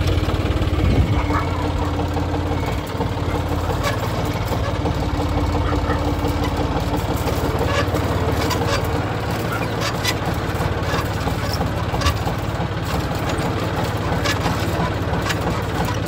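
An engine idling steadily, with scattered light clicks and taps over it.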